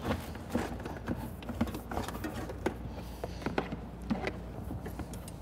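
Wires being handled and routed around an ATV's front frame: irregular light clicks and rustles over a low steady hum.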